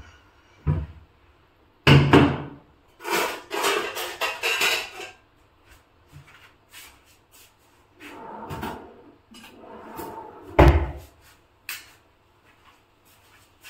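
Kitchen handling sounds: several knocks and thumps with rattling in between, the loudest about two seconds in and again near eleven seconds, as utensils and things are moved about and set down.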